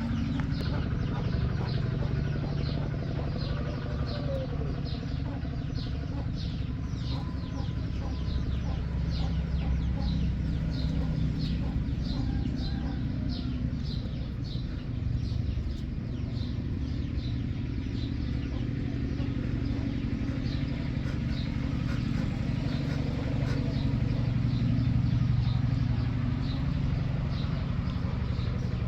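Outdoor ambience: a steady low rumble, with a short high chirp repeating nearly twice a second throughout.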